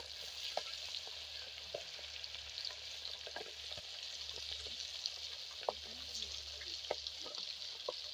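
Fish pieces deep-frying in hot oil in a black iron wok: a steady sizzle with scattered pops and crackles.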